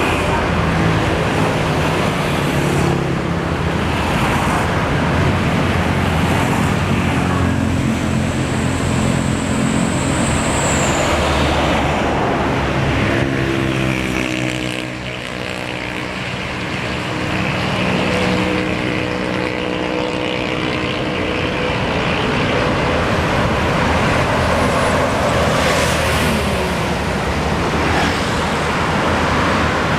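Diesel engines of large tour buses running as they pull out into the street, over steady road-traffic noise; about halfway through an engine's pitch sweeps and the sound briefly drops.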